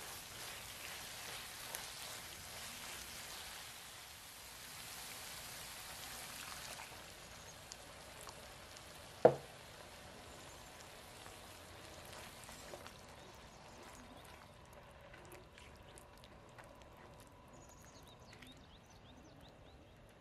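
Onions, bell peppers and tomato sizzling in a hot cast-iron skillet as they are stirred with a spatula. The hiss fades after about seven seconds, and a single loud knock comes about nine seconds in. The pan, now holding broth, then simmers quietly with small scattered pops.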